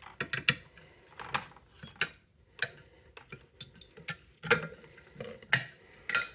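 Edwards 270-SPO fire alarm pull station being reset by hand: a run of irregular small clicks and knocks from its handle and latch mechanism, with a couple of louder clacks in the second half.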